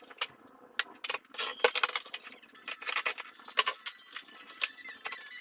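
Irregular clinks and clatters of small hard objects, tools being handled and set down while tidying a workbench.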